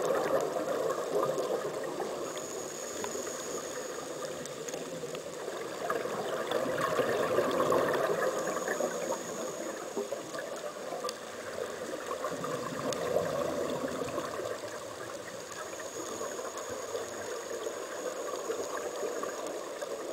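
Underwater sound of scuba divers' exhaled air bubbles, a gurgling rush that swells and fades every five or six seconds with each breath, with a faint high whistle coming and going between the swells.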